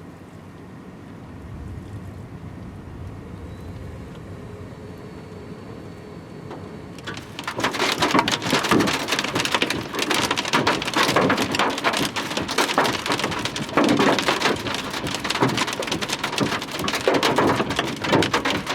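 Large hail and heavy rain hammering on a pickup truck's cab, coming in suddenly about seven seconds in as a loud, dense clatter of impacts after a quieter low hum. The strikes are hard enough to dent the cab roof.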